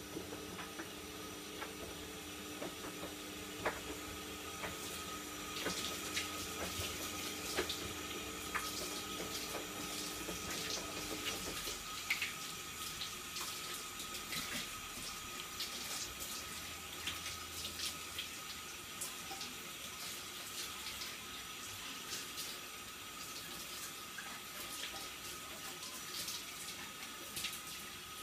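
Kitchen tap running into a sink while something is washed by hand, with frequent small clinks and knocks of handling. A low hum under it stops abruptly about eleven seconds in.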